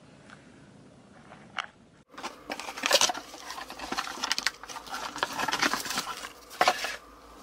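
Quiet room tone, then from about two seconds in, cardboard and paper packaging rustling and crackling in quick irregular bursts as a shipping box is opened and a small boxed item is lifted out.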